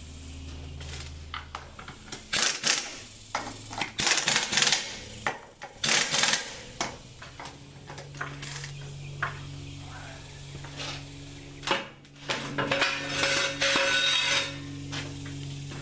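Metal hand tools clinking and clanking against metal parts: an irregular run of sharp knocks and rattles, over a low steady hum.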